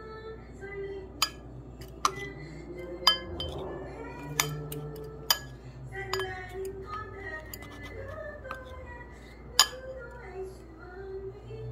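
A metal utensil clinks sharply against a bowl about six times at uneven intervals as sweet potato slices are turned in yam powder. A Korean pop song with singing plays in the background throughout.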